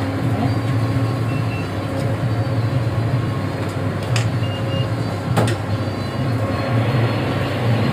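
Steady low mechanical hum over a background of even noise, with two sharp knocks about four and five and a half seconds in.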